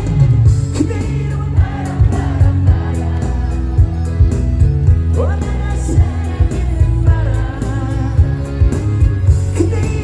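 Live pop song with a male singer's voice over a band, with a strong bass and a steady drum beat.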